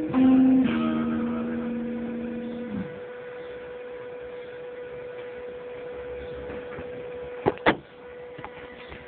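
Acoustic guitar's final note ringing and fading, then stopped short about three seconds in. A steady hum runs underneath, and two sharp knocks come near the end as the camera is handled.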